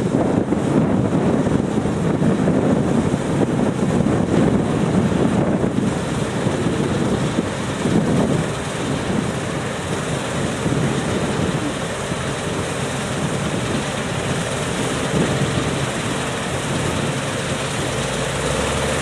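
A Claas combine harvester running steadily as it cuts and unloads grain, with the tractor pulling the grain trailer running alongside, together a dense, continuous drone. Wind buffets the microphone during the first few seconds.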